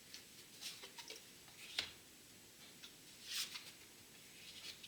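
Tarot cards being handled and laid out on a table: soft scattered clicks and taps, one sharper tap a little under two seconds in, and a brief papery slide of a card past the middle.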